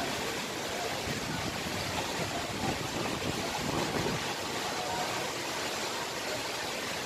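Steady rush of flowing water, an even noise that holds without breaks.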